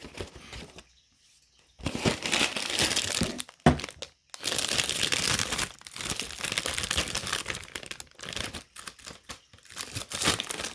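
A cracker box and its wrapper being opened: crinkling and tearing. It starts about two seconds in, with a brief pause a little after four seconds.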